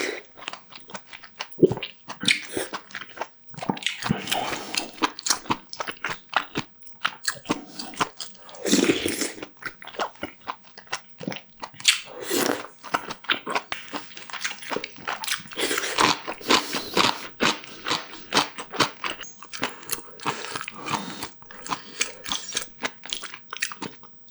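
Close-miked eating: a person chewing and biting food, a dense run of short wet clicks and crunches.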